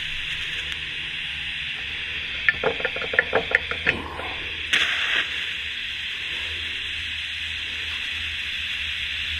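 TIG welding arc hissing steadily while nuts are tack-welded on. About halfway through comes a quick run of about eight sharp ticks, then a short louder burst.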